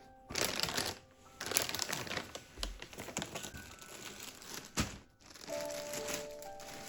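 Packaging being handled and crinkled in bursts, with a single sharp knock a little before the crinkling stops; soft piano music comes back in near the end.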